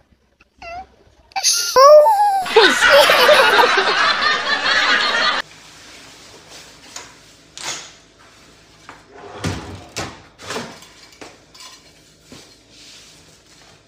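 A small child's crying wail, then about three seconds of loud laughter that cuts off suddenly. After it come faint rustling of clothing and a few short, soft vocal sounds.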